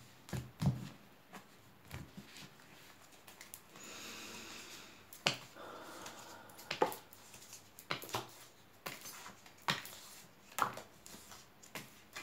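Tarot cards being shuffled and handled, then laid out on a table: a string of sharp snaps and clicks, with a stretch of rustling shuffle about four to seven seconds in.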